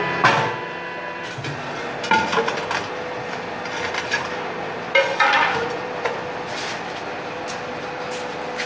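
Several metallic clanks and knocks as a large pressed metal pressure-cooker body is pulled out from under a hydraulic press and handled, over a steady machine hum.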